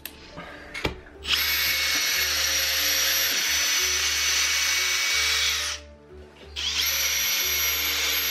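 Cordless drill boring into the wall above a window where there is no stud. The motor runs steadily with a whine for about four and a half seconds, stops for about a second, then starts again for a second run.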